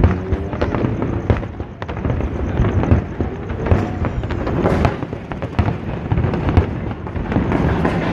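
Aerial fireworks display: shells bursting overhead in a dense, irregular run of bangs and crackles over a continuous low rumble.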